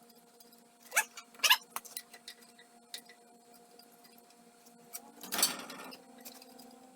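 Two sharp metal clinks about a second in, then lighter ticks and a short scraping rattle about five seconds in: the new bolts and nuts on a circulator pump's flanges being handled and threaded on by hand. A faint steady hum runs underneath.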